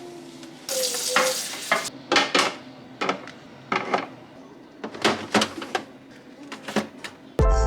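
Groceries and food containers being handled: a rustle of packaging about a second in, then a run of scattered clicks and knocks as items are set down. Music starts just before the end.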